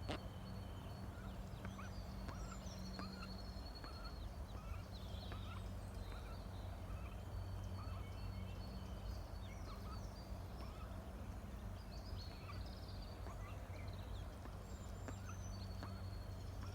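Mallard ducklings peeping: many short, high peeps scattered throughout, over a steady low hum.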